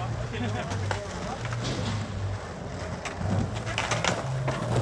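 Indistinct voices of people talking, with a low, repeating hum underneath.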